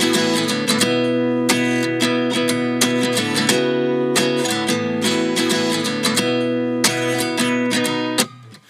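Background music: acoustic guitar strumming chords in a steady rhythm, with a brief drop-out near the end.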